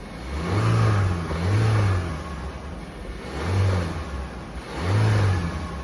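Volkswagen Jetta engine revved in four short throttle blips, each rising and falling back to idle. No clear knock stands out; the owner suspects a dull piston knock on throttle but says it isn't audible right now.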